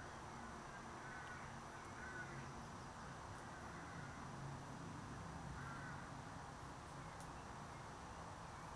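Faint steady background noise with a few short, faint chirps in it: one near the start, one about 2 seconds in and one near 6 seconds in.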